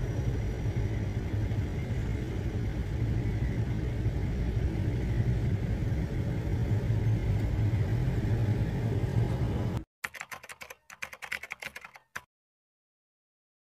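Steady rumble of a vehicle on the road with traffic around it, which cuts off abruptly about ten seconds in. A quick run of rapid clicks follows for about two seconds, then silence.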